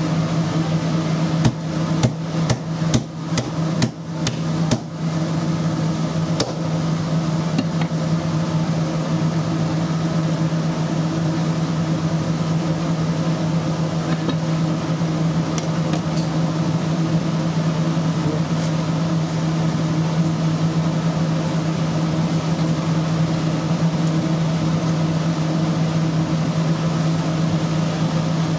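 Steady low hum of kitchen machinery. Between about two and five seconds in, a quick run of sharp knocks and clacks comes from a knife and a whole tuna being handled on a plastic cutting board.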